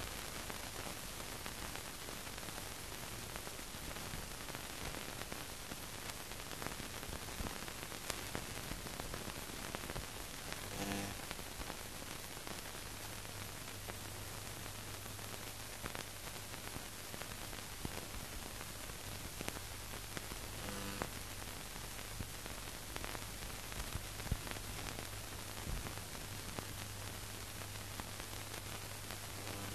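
Steady hiss and crackle of an old newsreel film soundtrack carrying no programme sound, with a low hum that comes in about halfway through.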